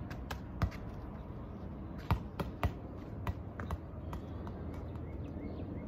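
Rubber ball bouncing on asphalt and being kicked: a string of short, sharp thuds over the first four seconds, the loudest about two seconds in, over a steady low outdoor rumble.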